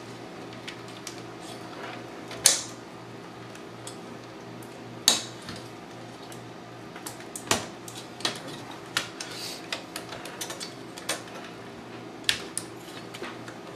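Hard drive's power connector being pushed and worked onto its socket inside a media player's case: irregular sharp plastic clicks and small clatter, one every second or so, a stiff fit, over a steady low hum.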